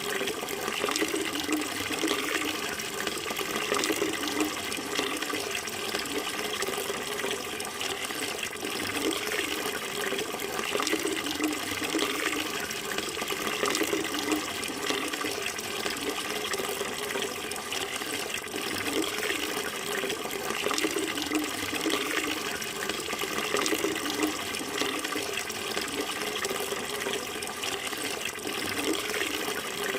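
Running water flowing steadily without pause, a continuous even rush.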